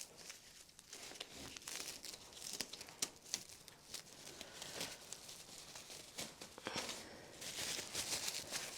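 Plastic cling wrap being peeled off seedling trays, crinkling and rustling unevenly with small sharp crackles.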